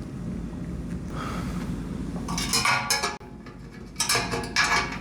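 Metal parts clinking and scraping against each other in two rough bursts, about two and a half and four seconds in.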